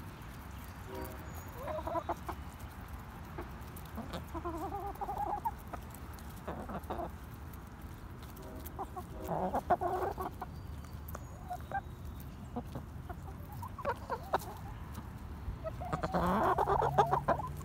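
Hens clucking in short bouts as they crowd in to feed, with quick sharp taps of beaks pecking grain from a person's palm; the clucking is loudest near the end.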